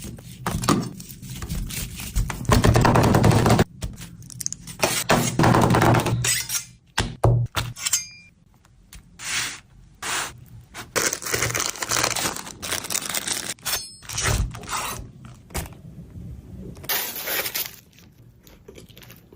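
Food-preparation handling sounds: a string of short knocks, scrapes and crackles that start and stop abruptly.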